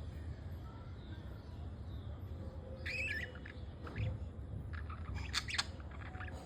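Budgerigars giving short squawky calls: a curving chirp about three seconds in, a brief call near four seconds, then a quick burst of chatter around five seconds in. A steady low hum runs underneath.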